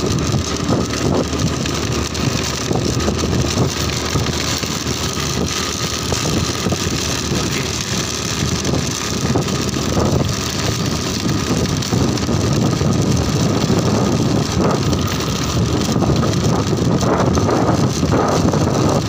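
Motorcycle riding along a road: the engine running steadily, with wind noise on the microphone.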